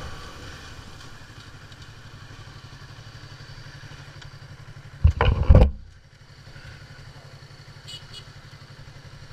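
Motorcycle engine running at low revs as the bike rolls slowly up to a traffic light, a steady low rumble, with one short loud burst about five seconds in.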